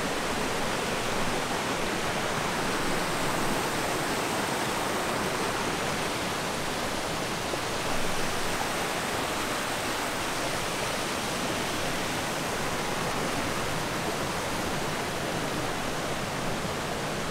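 Abrams Falls, a waterfall, rushing with a steady even roar of falling water.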